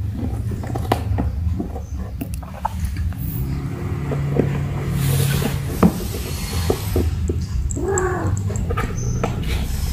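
Kittens pawing and scrabbling at a small cardboard box on a tile floor: light taps and scratches, with a sharp knock about six seconds in. A short kitten meow about eight seconds in.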